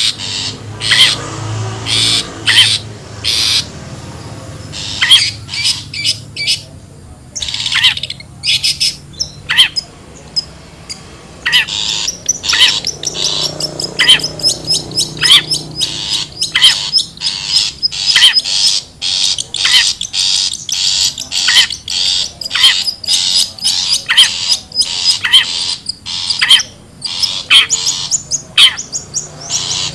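Long-tailed shrike (cendet) giving harsh, rasping calls in rapid, repeated series, used as a lure call for trapping. A thin, high, steady note runs beneath the calls through the middle of the stretch.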